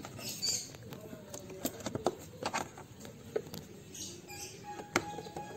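Spark plug wrench being fitted onto and worked against a scooter's spark plug: irregular sharp metal clicks and light scrapes, with a faint thin squeak in the second half.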